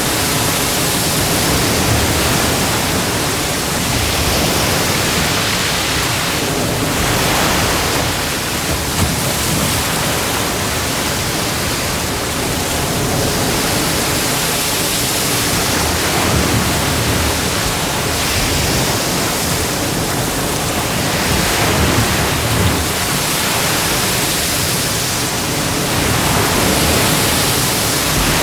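Ocean waves breaking and washing on a beach: a dense, continuous rush of surf that swells and eases every several seconds.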